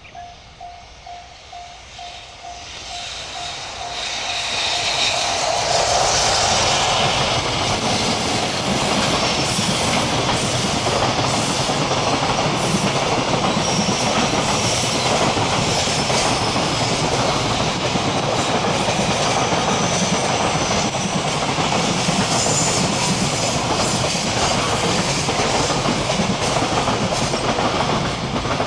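Freight train passing close by on a curve: the rumble and clickety-clack of its wheels build up over the first few seconds and run on steadily for over twenty seconds before fading near the end. A level-crossing bell rings in even pulses at the start and is drowned out once the train arrives.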